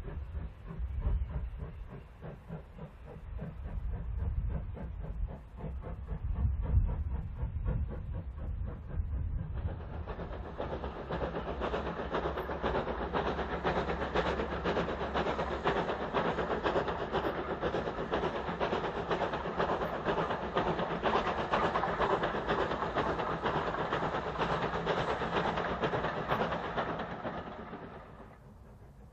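A steam locomotive working a train, first heard distant as a low rumble. About ten seconds in, a closer and louder sound takes over: the LNER J15 0-6-0 No. 7564 working past, its exhaust chuffing quickly and steam hissing steadily, until it drops away near the end.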